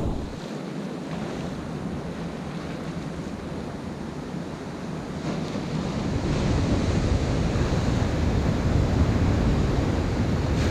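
Sea surf washing against a stone jetty, with wind buffeting the microphone; it grows louder and fuller from about six seconds in.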